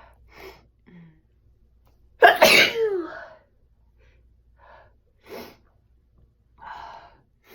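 A person sneezing once, loudly, about two seconds in, the voiced 'choo' falling in pitch. A few short, quieter breaths come before and after it.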